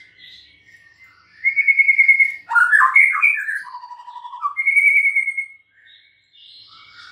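White-rumped shama (murai batu) singing. Soft calls at first, then from about a second and a half in a loud run of whistled phrases: a high rattling trill, a tumble of varied notes, a lower trill and another high trill. It drops back to softer notes near the end.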